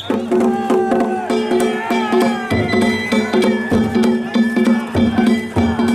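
Danjiri festival music (narimono): drum and gong strikes in a quick, steady rhythm under a pitched melody of held and sliding notes.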